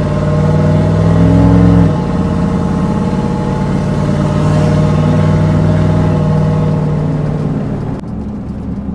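Cammed LS V8 with long-tube headers in a Chevy Silverado single cab, heard from inside the cab under acceleration. The engine note climbs, drops suddenly about two seconds in as the automatic shifts up, then pulls loud and steady before easing off near the end.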